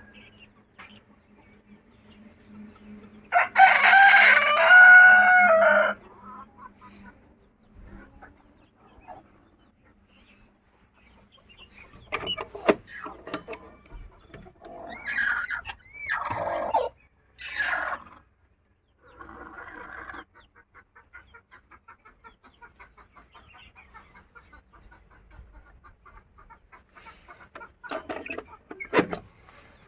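Local chickens: a rooster crows once, loud and long, about three seconds in, and later hens call and cluck, with a long run of quick, even clucks in the second half.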